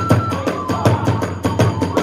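Kagura hayashi ensemble playing a fast, driving beat: drums and small hand cymbals struck several times a second, with short held notes from a bamboo flute.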